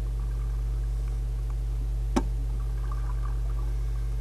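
A steady low hum with no other activity, broken by a single sharp click about two seconds in.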